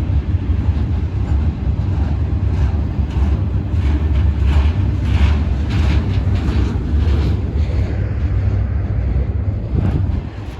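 Welded-rail freight train rolling past: a steady low rumble, with a run of quick, regular clatters through the middle.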